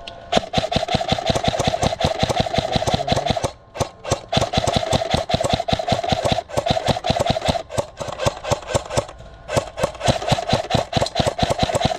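Krytac Trident MKII CRB-M airsoft electric gun firing long full-auto bursts: a rapid even clatter of shots over a steady motor-and-gearbox whine, stopping briefly three times between bursts.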